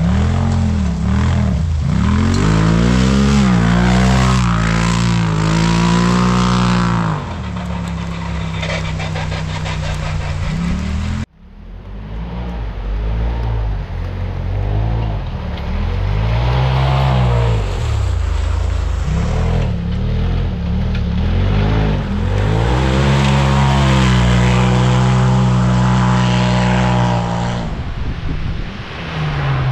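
Side-by-side (SSV) off-road vehicle engines revving hard, the pitch climbing, holding and dropping back several times. The sound breaks off abruptly about eleven seconds in and picks up again with another engine doing the same.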